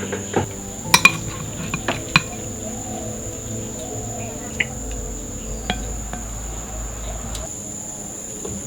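Crickets or similar insects chirring in one steady high note throughout, with a handful of sharp clinks and knocks, the loudest about one and two seconds in.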